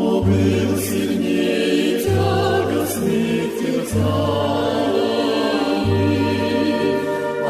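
Choral music: a choir singing over an accompaniment whose bass notes change about every two seconds.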